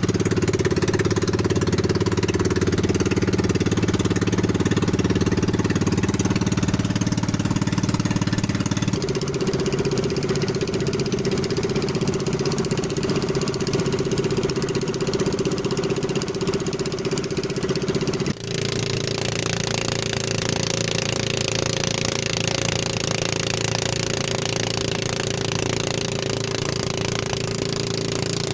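Boat engine of a small motorized fishing boat running steadily while underway, with a pulsing low drone and a hiss of wind and water. Its pitch shifts slightly about nine and eighteen seconds in.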